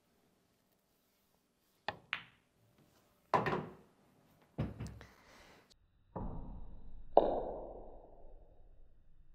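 Pool balls on a table: two sharp clicks a quarter second apart as the cue strikes the ball and it hits the other ball, then two heavier knocks of balls about a second later. Near the end a low rumble comes in, and the loudest sound is a booming hit with a long ringing tail.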